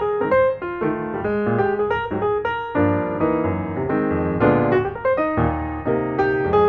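Background piano music: a quick run of notes and chords played at a lively, even pace.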